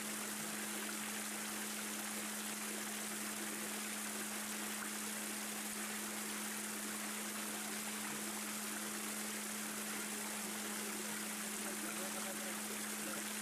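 Steady background noise: an even hiss with a constant low hum underneath, with no distinct calls or footsteps standing out.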